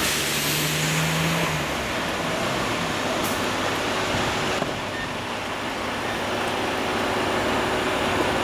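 Heavy-haul vessel-bridge transport rolling slowly past, a steady noise of its tyres and engines, with a brief low hum in the first second or so.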